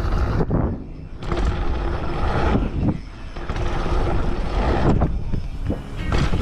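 Wind rushing over the camera microphone with the tyres of a YT Dirt Love aluminium dirt jump bike rolling on packed dirt. The noise drops away briefly twice, about a second in and again about three seconds in.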